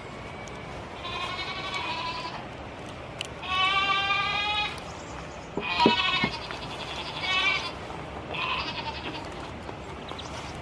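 Goats bleating, about five separate calls a second or so apart, the longest lasting about a second, with a sharp knock about six seconds in.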